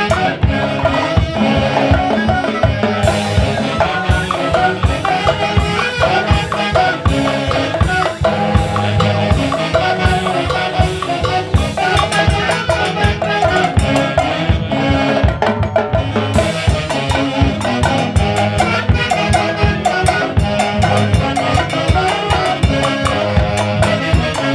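Live band music from a Huancayo orquesta: a melody played over a steady, driving drum-kit beat, in a Latin dance style.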